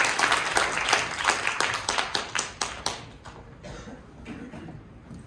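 Applause, hands clapping, dense at first, then thinning to a few scattered claps and dying away about three seconds in.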